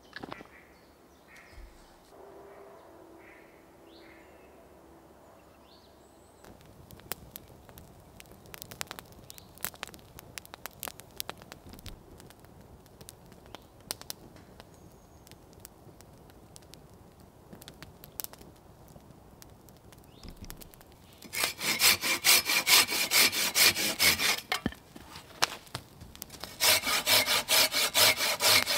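A hand saw cutting wood in two bouts of quick back-and-forth strokes, beginning about two-thirds of the way in, with a short pause between the bouts. Before the sawing there are scattered clicks and crackles, and faint bird calls in the first few seconds.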